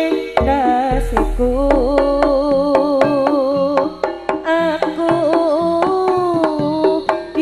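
Live jaranan ensemble music: drums beat quickly and densely under a held, wavering melody that slides between notes. A deep low boom sounds under the first half.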